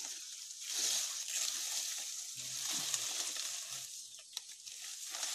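Coconut palm fronds rustling and crackling as they are handled and laid over a wooden roof frame, a continuous crackly rustle.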